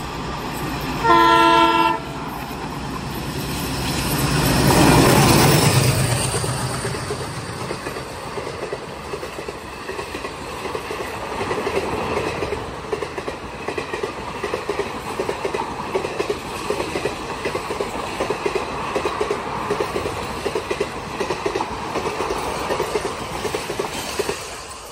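Twin WDM3D ALCo diesel locomotives hauling an express at about 105 km/h. There is one short, loud multi-tone horn blast about a second in, then the locomotives pass at speed, loudest about five seconds in. After that the coaches' wheels go by in a fast, steady clickety-clack over the rail joints, which fades as the last coach passes near the end.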